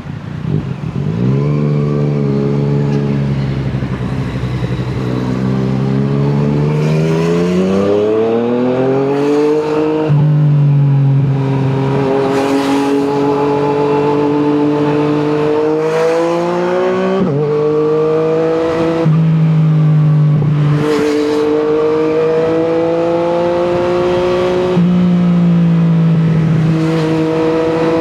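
Yamaha MT-09's inline-three engine through an Akrapovic exhaust, pulling under acceleration. Its pitch climbs slowly, then drops and climbs again several times as the gears are changed.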